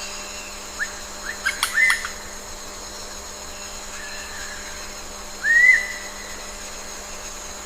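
Bird, likely a resplendent quetzal, giving whistled calls: several short rising whistles in the first two seconds, a faint one near the middle, and a louder whistle that rises and then falls about three-quarters of the way through. Under them runs a steady background hum.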